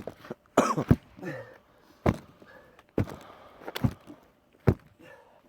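A series of dull thumps, about six at roughly one-second intervals, with a brief voice sound near the start.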